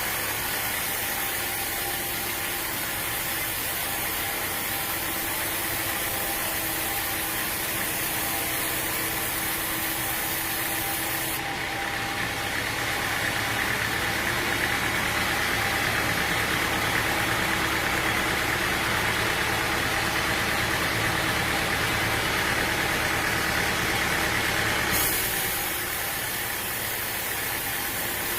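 Sawmill machinery running steadily with an engine-like drone and hiss. The sound changes abruptly about 11 seconds in and again about 25 seconds in.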